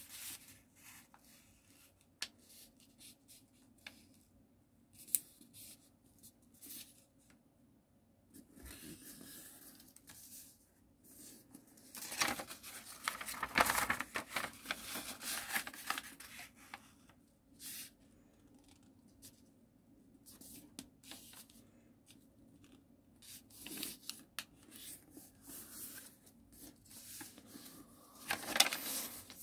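A sheet of origami paper being folded by hand: intermittent rustling and crinkling as it is creased and smoothed, with a few sharp clicks, and a louder rustle about halfway through as the sheet is lifted and turned over.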